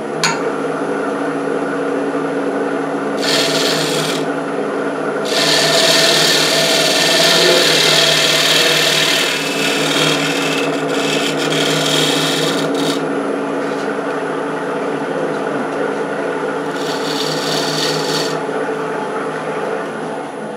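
Wood lathe motor running steadily while the spinning wood is sanded by hand, the abrasive rasping against it in stretches: briefly about three seconds in, for several seconds in the middle, and again near the end.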